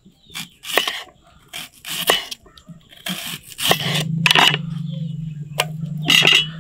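Kitchen knife slicing through a raw onion, its blade knocking on a wooden cutting board in irregular strokes. About halfway in, a steady low hum starts underneath and carries on.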